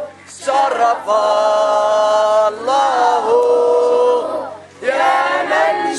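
Group of children singing in unison, holding long notes, with short breaks for breath just after the start and again near the end.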